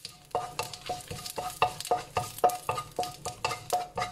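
A spatula stirring whole spices (bay leaves, cardamom, fennel seeds) frying in ghee in a nonstick wok. It strikes the pan in a quick, steady rhythm of about five strokes a second, each with a short ringing note, over a light sizzle.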